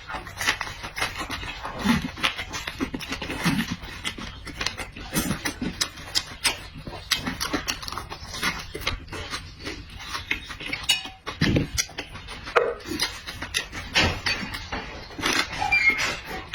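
A person eating close to the microphone: wet chewing and lip-smacking clicks, irregular and continuous, with a few short low grunts.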